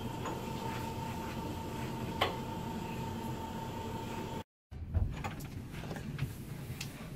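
A steady high-pitched whine, with a single sharp click about two seconds in. After a cut a little past four seconds come soft thuds of footsteps on carpeted stairs.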